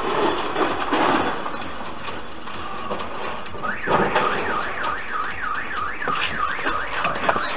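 A car alarm starts about three and a half seconds in: a fast up-and-down wail that repeats a few times a second. It sounds over street noise and a quick, regular high ticking.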